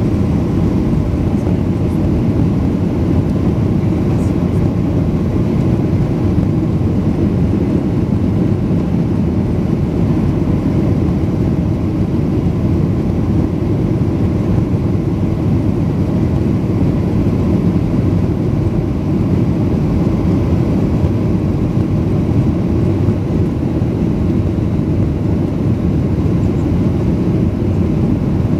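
Cabin noise inside a Boeing 737-800 climbing out just after takeoff, its CFM56-7B engines at climb thrust: a steady, unbroken low rush of engine and airflow noise.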